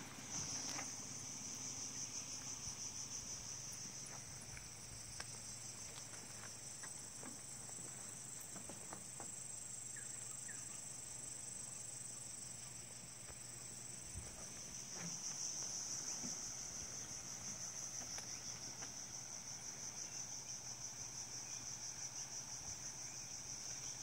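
A chorus of forest insects, a steady high-pitched rapid pulsing that swells louder about fifteen seconds in.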